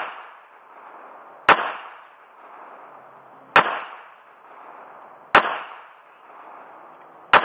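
Ruger LC9 9mm pistol fired four times at a slow, even pace about two seconds apart, each sharp shot trailing off in a short echo.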